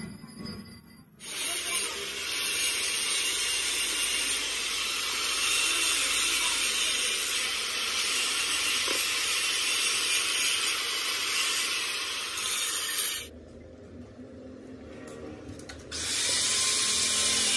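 A loud, steady hiss starts about a second in. It cuts out for about three seconds near the end, then starts again.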